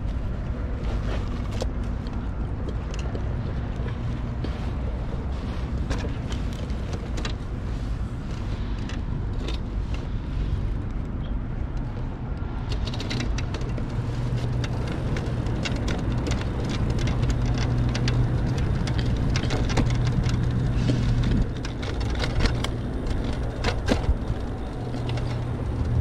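A vehicle running steadily, with a low hum and road or rattling noise. Scattered sharp clicks and rattles come in about halfway through, and the sound grows a little louder there.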